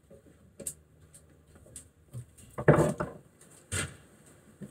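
Small metal clicks and clinks of pliers working a circlip off a handbrake caliper clamped in a vice, with two louder clunks a little past halfway, about a second apart.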